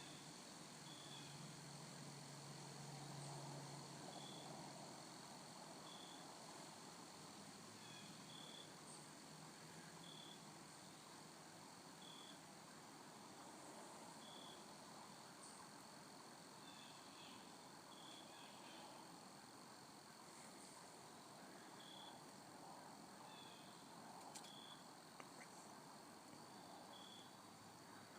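Near silence with faint insect chirping: short high chirps about one every two seconds, over a steady faint high tone.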